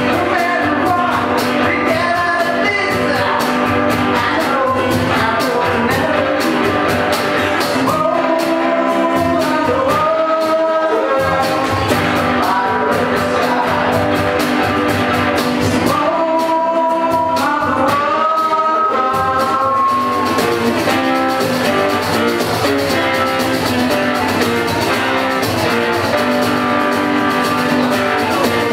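Live rock band playing a song with a singer over guitar; twice the bass and drums drop away for a few seconds, leaving the melody on top.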